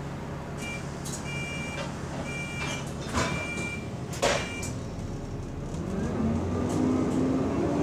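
London bus doors closing: a series of short high warning beeps over the engine's idle, with two sharp knocks as the doors shut. Then the bus's engine note rises as it pulls away.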